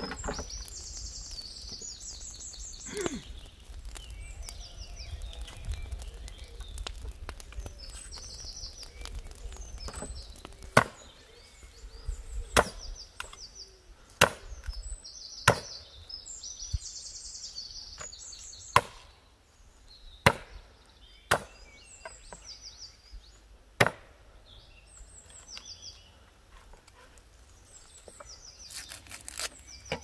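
Chopping blows on wood: about eight sharp strikes at uneven intervals of one to three seconds, starting about ten seconds in.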